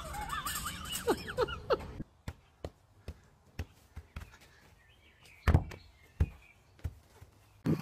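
From about two seconds in, a football being kicked and kept up with the feet: about nine separate dull thuds at uneven spacing, the loudest about five and a half seconds in.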